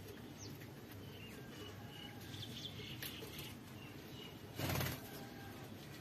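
Lovebirds giving faint, short chirps now and then, with one brief loud rustle about four and a half seconds in.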